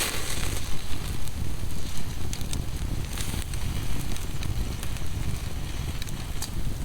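Campfire crackling with scattered sharp pops, over a steady low rumble of wind on the microphone.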